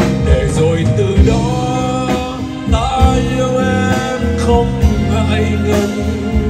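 A man singing into a handheld microphone, backed by a live band with drum kit, bass guitar and keyboard. His wavering melody sits over steady bass notes and regular drum hits.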